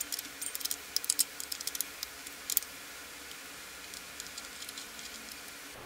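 Light, irregular metallic clicks and ticks as a bolt on the camshaft's timing-chain sprocket is unscrewed by hand, lasting about two and a half seconds, then only faint hiss.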